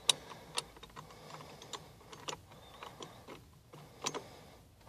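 Scattered short, light clicks and taps, about a dozen at irregular spacing, from hand tools and a steering wheel puller being worked on a steering column.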